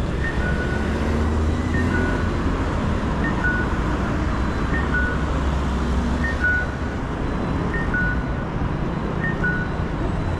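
Audible pedestrian crossing signal at a Japanese intersection: an electronic two-note cuckoo call, a short high note then a longer lower one, repeating about every second and a half, over the low rumble of passing traffic.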